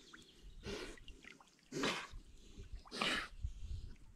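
A swimming dog breathing hard, with three short, sharp puffs of breath a little over a second apart.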